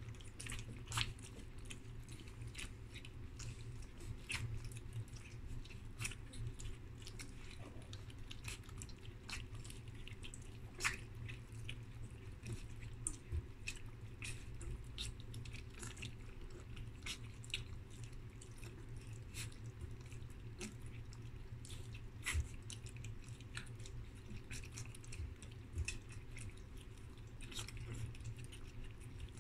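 German Shepherd puppies, a little over three weeks old, lapping goat milk from a shallow tray: many small, irregular wet clicks and slurps, with a low steady hum underneath.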